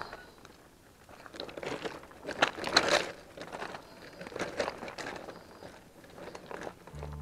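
Irregular crunching and scraping on loose gravel railway ballast, with a few sharper clicks, as an e-bike is wheeled and handled over it. Music with long held notes comes in near the end.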